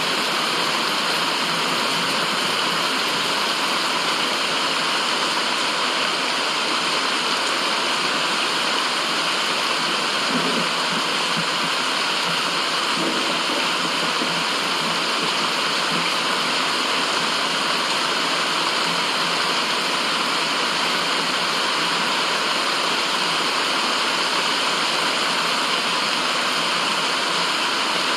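Steady white noise: an even, rushing hiss with no pauses or changes in level, sounding like running water.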